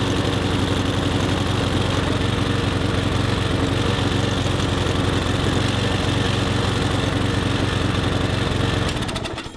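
Mountfield petrol lawn mower's Briggs & Stratton engine running steadily after its first start in a year, a little slow and lumpy. Near the end it is shut off and winds down to a stop.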